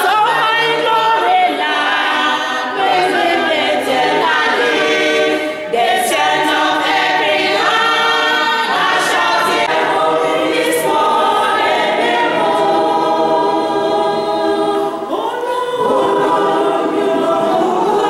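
Church choir singing a cappella, many voices together in phrases with short breath breaks.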